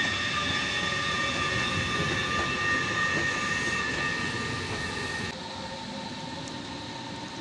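Train at a station platform: a steady rumble with a high whine of several held tones, which cuts out a little after five seconds in, leaving a quieter steady rumble.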